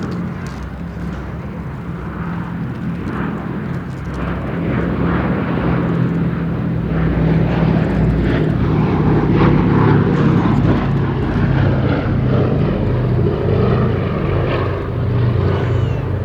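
Boeing B-17G Flying Fortress's four Wright R-1820 Cyclone radial piston engines droning as the bomber flies past. The sound grows louder to a peak about ten seconds in, then eases slightly.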